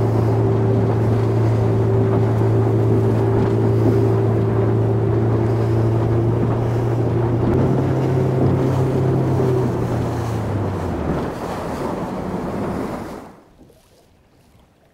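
Small boat's outboard motor running at speed, a steady drone over rushing water and wind buffeting the microphone. The engine note steps up slightly about halfway, then fades, and the whole sound drops away to quiet near the end.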